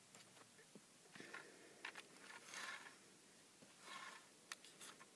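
Near silence, with faint soft rustles and a few light clicks from a small plastic Lego car being pushed by hand across carpet.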